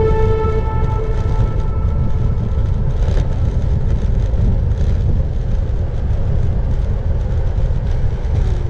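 Steady, loud low rumble of wind buffeting an action-camera microphone while riding a bicycle. Background music is still fading out during the first second or so.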